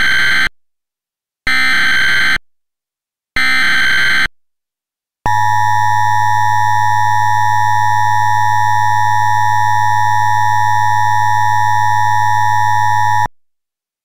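Emergency Alert System tones: three short bursts of SAME header data, screechy digital warbles about two seconds apart, then the steady two-tone EAS attention signal held for about eight seconds before cutting off abruptly.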